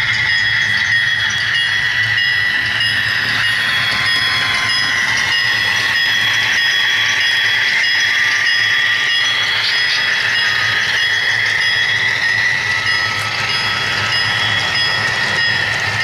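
HO-scale model of a GE AC4400CW diesel locomotive running steadily with its sound decoder playing diesel engine sound through a small speaker. A steady high tone sits over a low hum, along with the rolling of the coal hopper cars on the track.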